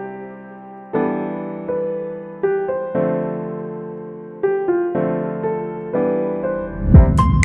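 Background music: piano chords struck about once a second, each fading away, with a drum beat coming in near the end.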